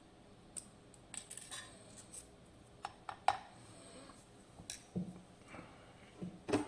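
Small metal lock parts and tools being handled on a hard surface: an irregular run of light clicks, taps and clinks, the loudest tap near the end.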